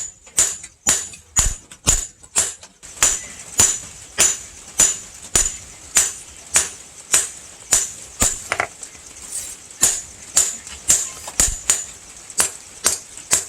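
Blacksmith's hammer striking rebar steel on an anvil, a steady run of blows about two a second, each with a bright metallic ring.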